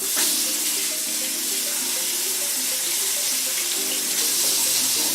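Kitchen sink faucet turned on and running steadily as jalapeño halves are rinsed under the stream.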